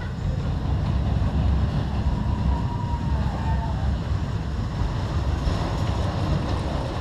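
Low, fluctuating rumble of a Vekoma Boomerang steel roller coaster train running on its track out of sight, mixed with wind on the microphone.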